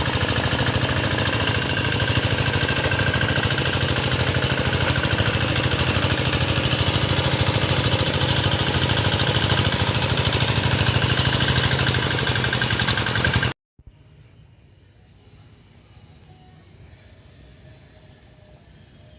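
A hand tractor's engine running steadily close by, with a fast, even firing pulse. It cuts off abruptly about 13 seconds in, leaving a quiet background of high, evenly repeated insect chirps.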